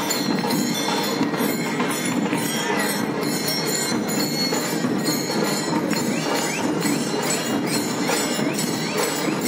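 Nasik dhol procession band playing: big barrel drums and cymbals beating out a loud, dense, steady rhythm.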